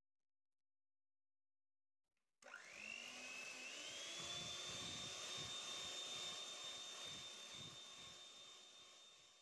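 Electric hand mixer beating liquid cake batter of eggs, oil and milk. It switches on about two and a half seconds in with a whine that rises as the motor spins up, runs steadily, and fades gradually near the end.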